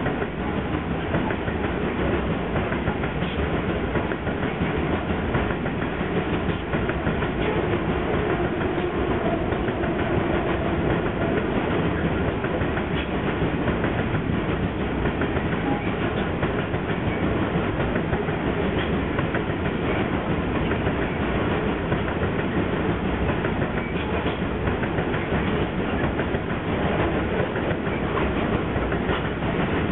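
Loaded coal hopper wagons rolling past close by: a steady rumble of steel wheels on rail, with an occasional click from the wheels.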